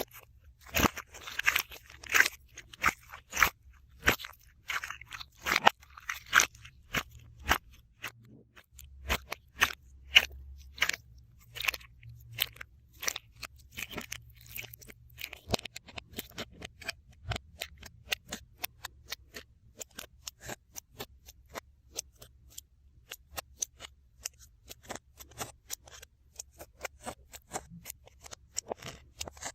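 Slime being worked by hand, making many sharp, irregular clicks and crackles. They come thickest in the first several seconds, then thin out.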